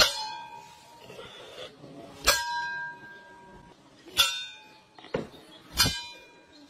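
A metal bowl is struck hard four times, about two seconds apart, each clang ringing on briefly with a bell-like tone. There is a lighter knock just before the last clang.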